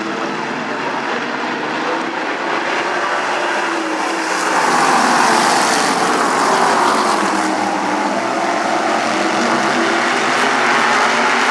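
Stock-car engines running on the oval, louder from about four seconds in as cars go past, their pitch falling as they pass.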